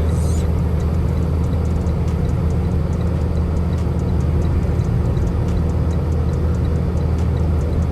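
Semi-truck's diesel engine and road noise heard inside the cab while driving: a steady low drone.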